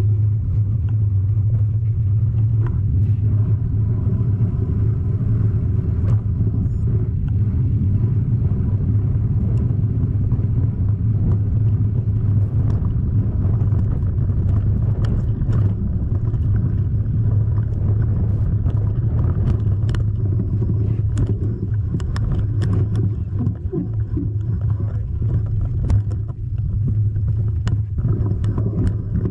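Steady low vehicle rumble, even in pitch throughout, with frequent short knocks and rattles over it.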